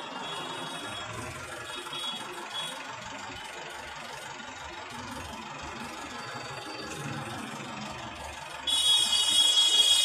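Steady city traffic noise, with engines running among buses and taxis in slow traffic. Near the end a loud, high-pitched vehicle horn blares for about a second and a half.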